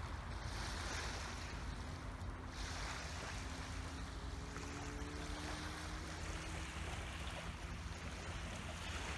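Small waves lapping on a lakeshore, with a steady low rumble of wind on the microphone. A faint hum rises slowly in pitch through the middle.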